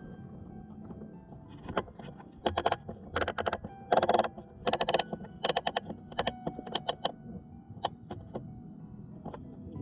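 Handling noise from the scoped rifle and its scope camera as it is swung onto the target: bursts of rapid clicking and rattling, loudest about four seconds in, over a faint steady hum.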